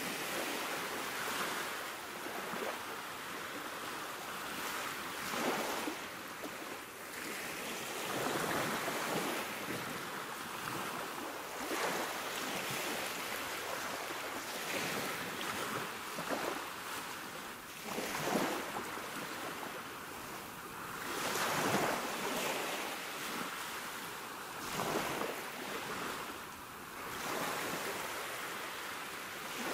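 Sea waves breaking and washing in: a steady rush of surf that swells and falls every few seconds.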